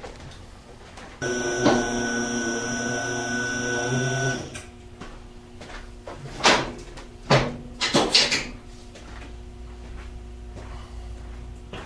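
Motorcycle lift table being lowered: a steady mechanical hum with a high whine runs for about three seconds, then three sharp knocks about a second apart.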